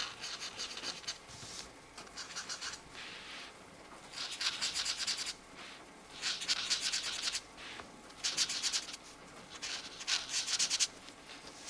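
Felt-tip marker nib scratching over coloring-book paper in quick back-and-forth strokes, in about six bursts of a second or so with short pauses between them.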